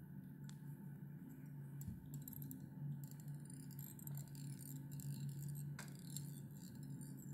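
Faint scratchy clicks and rustling as a strand of hare's-mask dubbing on thread is wound around a fly hook held in a vise, over a steady low hum.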